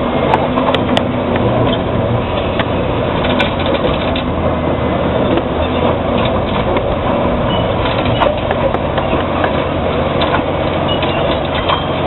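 Caterpillar D7G bulldozer's diesel engine running under load as its rear ripper shanks tear through the ground, a steady heavy machine noise with scattered sharp clicks.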